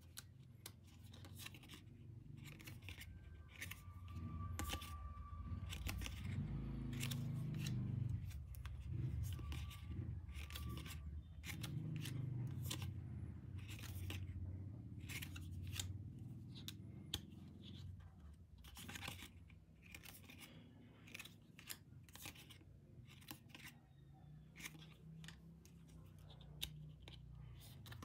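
Glossy photocards being handled and flipped one by one, with many sharp clicks and snaps of card against card and fingers. A low rumble runs underneath from about four seconds in until about seventeen seconds.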